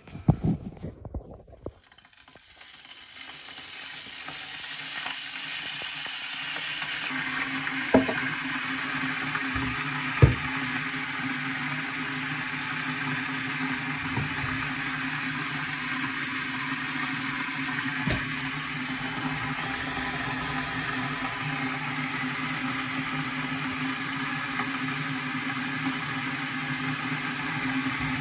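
Morphy Richards electric kettle heating water: a hiss that builds over the first several seconds and then holds steady, with a low hum under it and a few light knocks.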